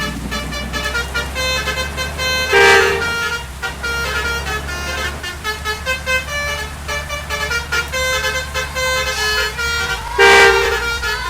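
Bus's Basuri 'telolet' multi-tone horn playing a running tune of quick, changing notes over the steady low running of the bus engine. Two much louder short horn blasts come about two and a half seconds in and again near the end.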